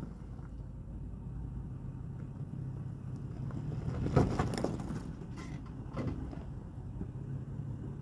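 Toyota 4Runner's V6 engine running low and steady as the SUV crawls over rocks, with one sharp knock about four seconds in and a few fainter clicks after it.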